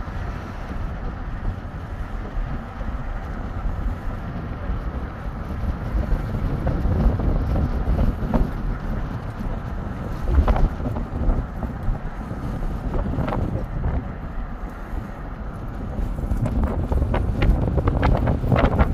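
Wind buffeting the phone's microphone: a loud, uneven low rush of noise, with a few sharp clicks near the end.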